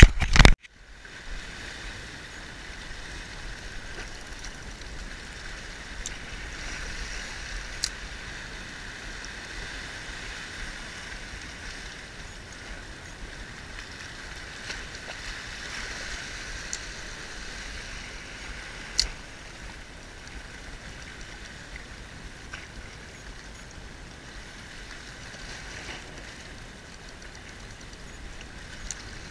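Small sea waves washing over rocks, a steady hiss with a few faint scattered clicks. There is a loud short knock right at the start.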